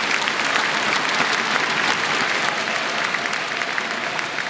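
Arena crowd applauding at the end of a badminton rally: many hands clapping together, easing off slightly toward the end.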